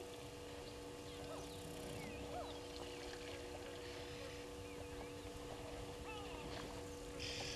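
Outdoor bush ambience: scattered short bird chirps and calls over two steady faint hum tones, with a brief hiss of higher noise near the end.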